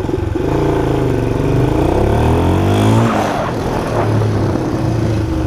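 1976 Honda XL175's single-cylinder four-stroke engine revving up under hard throttle for about two and a half seconds, then easing off and settling. This time it picks up and runs cleanly, without the misfire the rider blames on a weak ignition coil.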